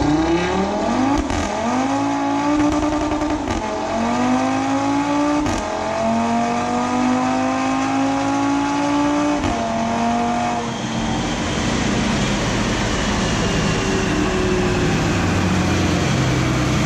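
Stage 2 Audi RS3's turbocharged 2.5-litre five-cylinder, with downpipes and midpipes, revving hard on a chassis dyno. Its pitch climbs and drops back suddenly a few times. About eleven seconds in the engine note dies away, leaving a steady rushing noise with a faint falling whine as the wheels and rollers spin down.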